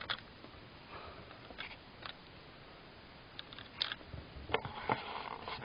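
Plastic Lego pieces of a puzzle box being handled: a few scattered light clicks, then a busier run of small clicks and clacks near the end.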